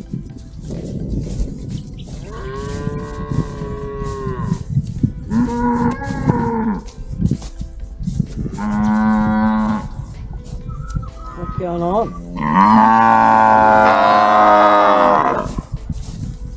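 Cows mooing: a series of separate calls, the last and loudest one drawn out for about three seconds near the end.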